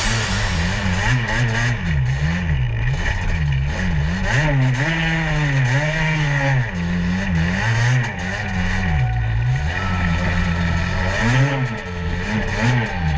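Quad bike (ATV) engine revving up and down as the throttle is worked while riding, its pitch rising and falling about once a second.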